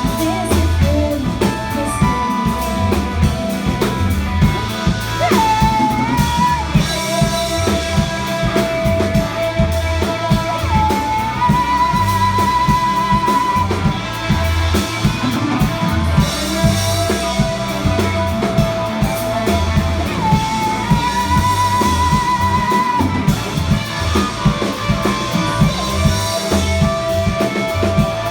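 Rock band playing live, drum kit and guitar driving a steady beat, over which long sustained high notes recur every few seconds, each one sliding up into pitch before it is held.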